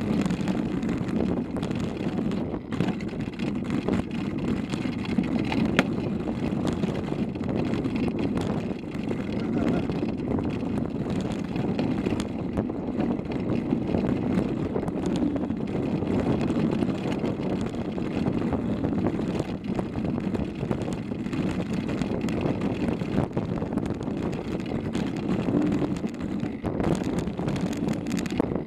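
Mountain bike descending a loose gravel trail, heard through a handlebar-mounted camera: steady rumble of the tyres over the stones and rattle of the bike, with many small knocks and wind on the microphone.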